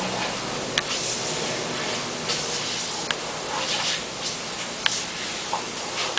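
Lawn sprinkler spray hissing steadily, rising in brief surges every second or so, with a few sharp ticks.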